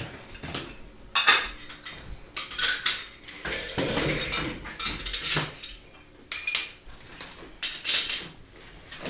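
Metal and glass equipment clinking and clanking as it is handled and packed away, with irregular sharp knocks scattered throughout.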